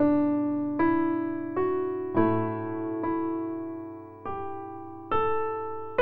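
Soft, slow solo piano background music: single notes and chords struck about once a second, each left to ring and fade.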